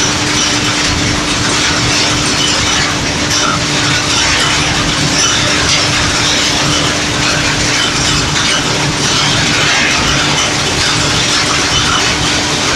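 Lintec CSD 3000 asphalt mixing plant running in production: a loud, steady machinery noise with a constant hum underneath.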